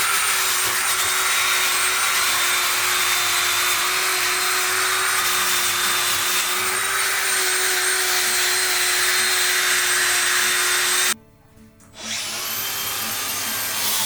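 High-speed electric power tool cutting into wood with a steady whine. About 11 seconds in it stops briefly, then winds back up with a rising whine.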